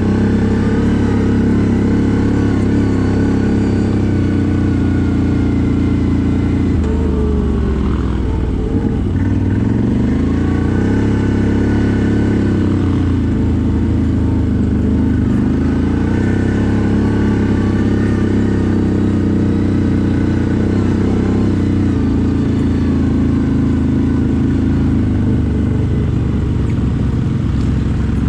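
CFMoto 1000 ATV's V-twin engine running under way. Its pitch drops about seven seconds in and then rises and falls several times as the throttle is worked.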